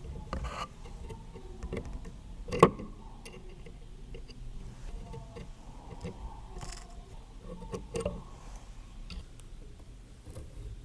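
Small wooden model parts being handled on a workbench: scattered light clicks and knocks, with one sharp knock about two and a half seconds in and a few more near the end.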